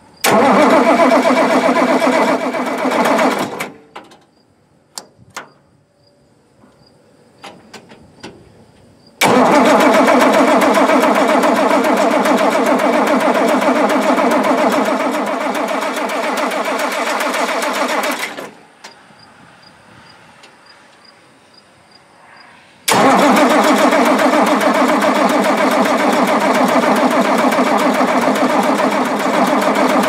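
Oliver 1650's six-cylinder Waukesha diesel cranked over on its electric starter in three bursts, short, long, then long, each cut off abruptly, with a fast even beat of compression strokes. It is turned over without firing, to push fuel through the injection lines, which are cracked open at the nuts to bleed air after the injection pump was worked on.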